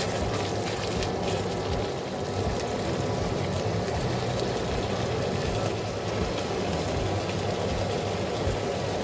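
Sauce bubbling and sizzling in a stainless steel wok with mushrooms and fried chicken, over a steady low hum.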